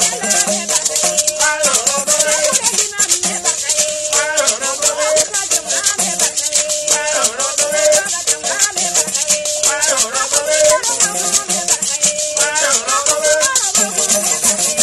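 Traditional Bissa griot music: gourd rattles shaken in a fast, steady rhythm under a sung melody, with a long-necked gourd lute played alongside.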